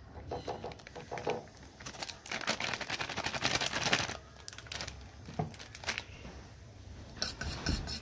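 A foil packet rustles as sattu powder is tipped into a steel bowl of water, with light taps of a metal spoon on the bowl. Near the end the spoon starts clinking and scraping around the steel bowl, stirring the mixture.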